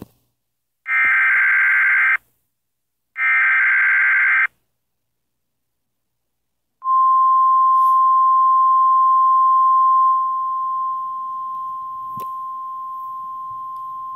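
Emergency Alert System header tones: two harsh, buzzy digital data bursts about a second long each, then after a pause a single steady high-pitched attention tone of the weather-radio kind. The tone holds for several seconds and drops a little in level partway through.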